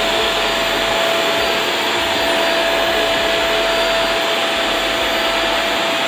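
Eureka Forbes Trendy Zip Plus 1200-watt canister vacuum cleaner running at a steady pitch: a rush of air with a steady whine underneath.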